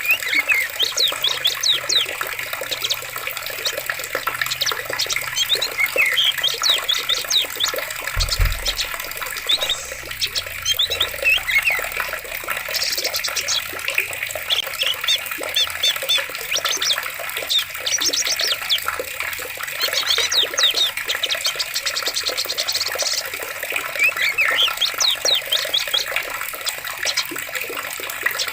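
Forest stream water running steadily under many small birds chirping and trilling in quick, repeated calls. A single brief low thump about eight seconds in.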